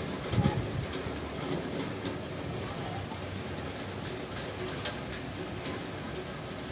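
Steady rain falling, with single raindrops now and then tapping sharply close to the microphone. A couple of low, soft sounds come about half a second in.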